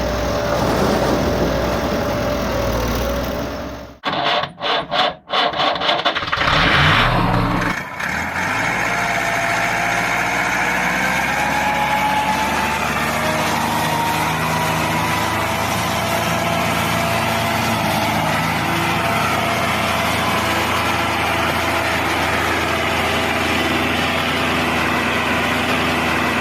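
Engine running steadily, broken by several abrupt cuts and choppy dropouts between about four and eight seconds in, then running on evenly.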